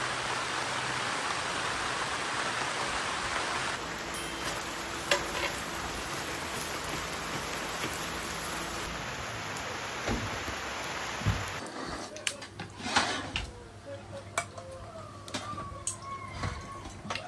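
Steady hiss of falling rain that cuts off suddenly about two-thirds of the way through. After it come scattered light clicks and knocks, like cups and dishes being handled.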